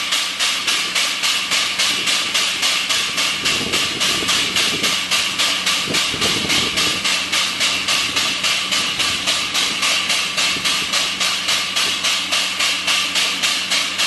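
Air-operated double-diaphragm pump pumping waste oil, each stroke a sharp hissing chuff of exhaust air, about three a second in an even rhythm, over a steady low hum.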